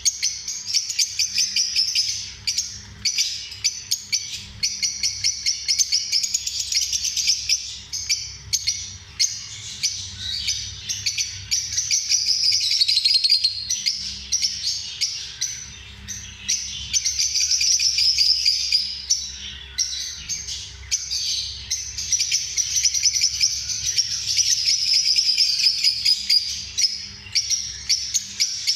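Lovebirds chirping nonstop in rapid, overlapping, high-pitched chatter, over a faint steady low hum.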